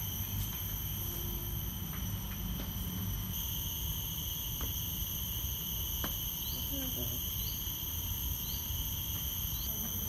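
Insects trilling steadily in several even, high-pitched tones over a low rumble, the drone growing a little louder about three seconds in. About four short rising chirps, roughly a second apart, come in the second half.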